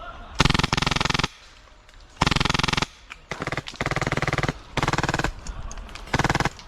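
Airsoft M249 support gun with a Polarstar Jack HPA engine firing full-auto in about five short bursts, each a rapid string of sharp pneumatic cracks.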